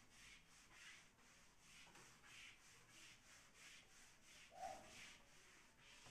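Whiteboard eraser wiped back and forth across a whiteboard: faint, even rubbing strokes at about two a second, with a brief squeak about four and a half seconds in.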